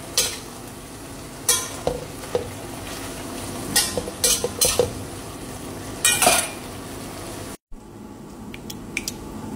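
A spatula scraping and knocking against a pan while bottle gourd, pork and greens are stir-fried, over a steady sizzle. Near the end the sound cuts briefly and gives way to a quieter steady hiss with a few light clicks.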